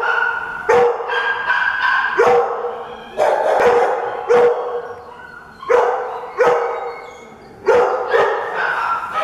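Shelter dogs barking loudly in a kennel, about ten barks coming singly or in pairs every second or so. Each bark rings on in a long echo off the concrete-block walls and floor.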